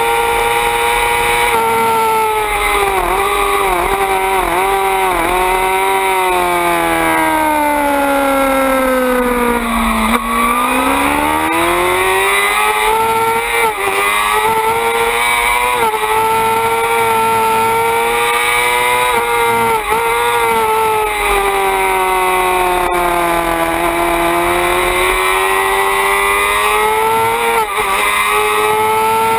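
Suzuki GSX-R 600 inline-four race engine at high revs on track. The pitch winds down in wavering steps to a low point about ten seconds in as the bike slows for a corner, then climbs steadily under acceleration, eases off again about two thirds of the way through, and rises once more near the end.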